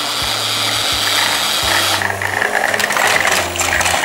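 Small battery-powered toy train motors running, a steady whir with gear rattle.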